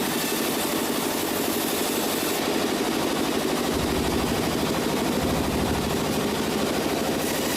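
A sawmill's engine running steadily, with a rapid, even pulse.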